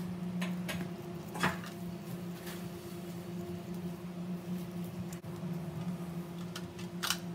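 Knife slicing cucumber by hand over a plate, a few short crisp cuts and taps scattered through, over a steady low hum.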